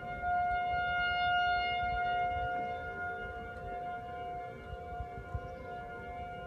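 Outdoor tornado warning siren sounding one steady, held tone. It swells louder just after the start, eases off about two seconds in, and then holds steady, with a low rumble underneath. The siren is sounding the tornado warning.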